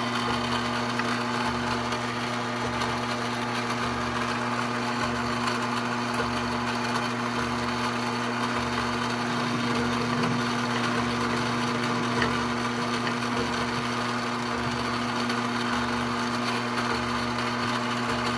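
Mini lathe running steadily with work in its 4-jaw chuck, a steady motor hum under a slow, regular low pulsing.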